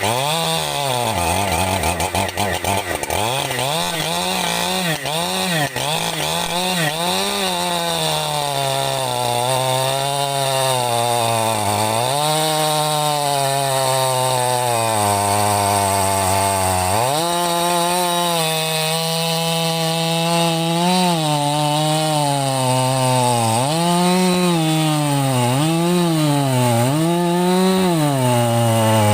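Husqvarna 585 two-stroke chainsaw running, revved up and down repeatedly. It drops to a lower steady speed for a few seconds midway, then revs back up and is blipped several times near the end.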